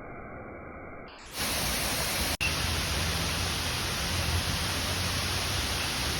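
Steady rushing of a waterfall, a dense even hiss. About a second in, a muffled, thinner noise cuts to the full, louder rush, which drops out for an instant about a second later.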